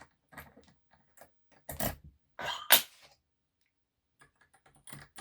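Metal clicks and knocks from a dimple lock and its picking tools being handled while the lock is reset, with two louder knocks about two and three seconds in and a few faint ticks near the end.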